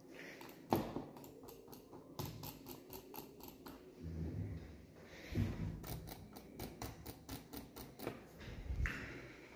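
Computer mouse button being drag-clicked: two fast runs of sharp clicks, one about two seconds in and one from about five and a half seconds. A few low thumps sound in between, loudest near the start.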